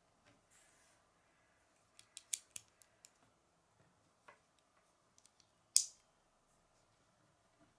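Lego pieces clicking as they are pressed onto a small brick-built model: a quick run of clicks about two seconds in, then one sharper snap near six seconds.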